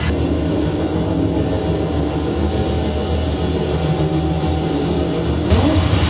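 Loud, low, steady machine-like rumbling drone from the dance performance's soundtrack. About five and a half seconds in, a hiss comes back in over it and a short rising tone sounds.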